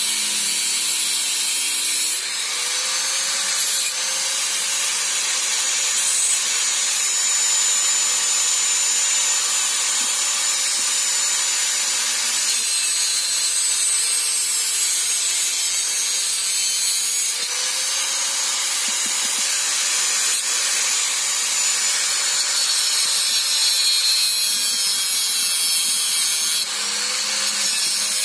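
Electric angle grinder with a cut-off disc cutting into a small steel part, a steady hissing grind as the disc bites the metal. The motor's whine sags and recovers in pitch a few times as the disc is pressed into the cut.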